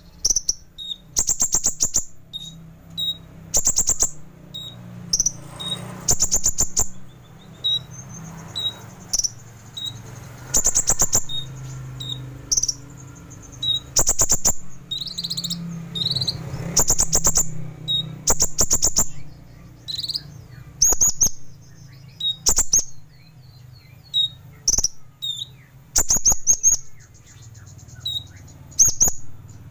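Kolibri ninja sunbird singing a sharp, 'full isian' song: short bursts of very fast, buzzy trills every second or two. Between them come brief high single notes.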